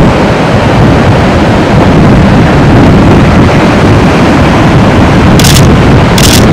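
Loud, steady roar of ocean surf breaking on a beach, mixed with wind rumbling on the microphone. Near the end come two short bursts of hiss.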